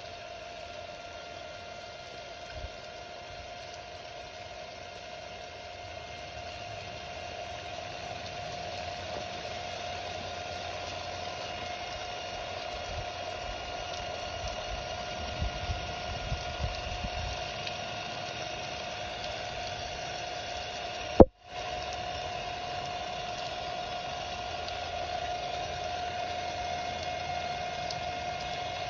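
Water spraying steadily onto a Ryobi cordless impact driver and the wet pavement, with a steady whine under it. About two-thirds of the way through, a sharp click, and the sound cuts out for a moment.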